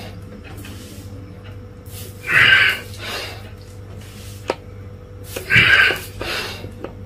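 A man's forceful breathing during yoga exercise: two loud, sharp hissing exhalations about three seconds apart, each followed by a softer breath, over a steady low hum, with a single small click between them.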